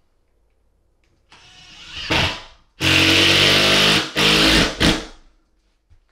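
Makita 10.8–12 V cordless impact driver driving a self-drilling screw through a metal ceiling bracket and the OSB into a wooden joist. It spins up with a rising sound about a second in, then runs at full power in two stretches with a brief break between, and stops about five seconds in.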